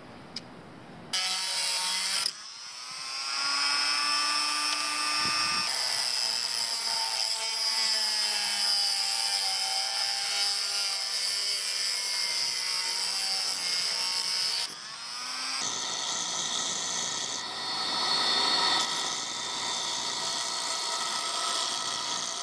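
Hand-held rotary tool with a small sanding drum running at high speed, sanding plywood, its whine shifting in pitch as the load changes. About 15 s in it stops, and a bench-mounted grinding machine runs with a steady whine, grinding a plywood edge.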